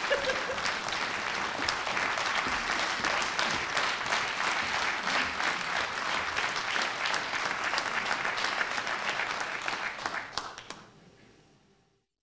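Audience applauding, dense clapping that dies away about eleven seconds in, leaving near silence.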